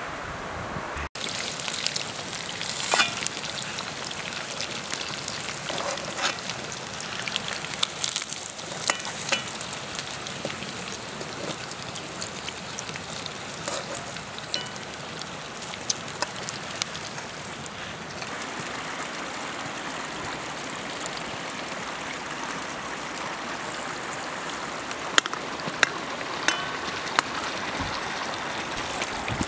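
Meat frying in hot oil in a pan over an open wood fire: a steady sizzle with scattered sharp pops and crackles.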